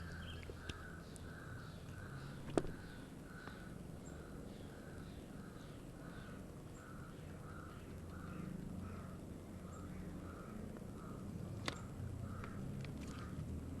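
An animal call repeated steadily, about two calls a second. A sharp click sounds about two and a half seconds in and another near the end.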